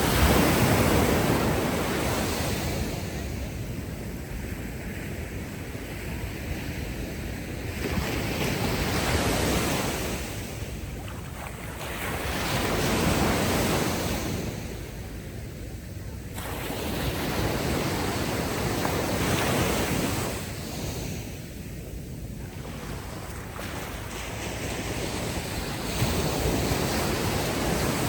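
Ocean waves breaking and washing up the shore, the surf swelling and falling back every few seconds.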